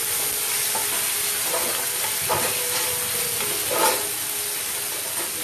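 Onions, green chillies and curry leaves sizzling in hot oil in a nonstick frying pan while a spatula stirs them, with a few short scrapes of the spatula against the pan, the loudest about two thirds of the way through.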